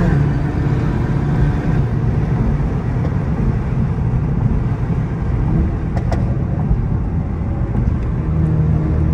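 Straight-piped exhaust of a BMW E60 535i's N54 twin-turbo straight-six, heard from inside the cabin while the car cruises at steady throttle. It is a loud, low, continuous sound, with a single click about six seconds in.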